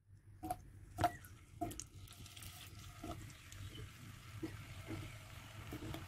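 Raw potato slices set down into shallow hot oil in a nonstick wok, with a few soft knocks in the first couple of seconds and faint sizzling as they start to fry.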